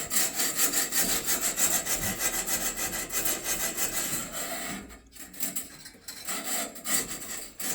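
Chimney-cleaning tool scraping rapidly up and down inside an LP gas refrigerator's rusted burner chimney, several rasping strokes a second, knocking loose rust scale that would otherwise clog the burner. The scraping breaks off briefly about five seconds in, then resumes in slower strokes.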